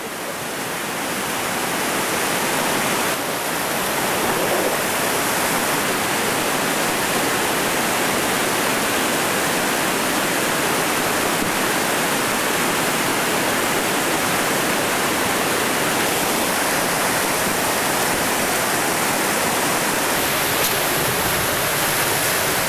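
Whitewater rapids rushing steadily over rock: a dense, even noise of churning river water that builds over the first few seconds and then holds.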